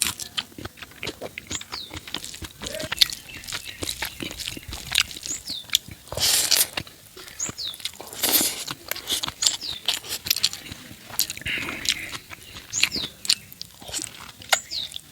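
Close-up eating sounds of fatty pork curry with rice: wet chewing and lip smacks with many quick clicks. Two longer, noisier mouth sounds come about six and eight seconds in.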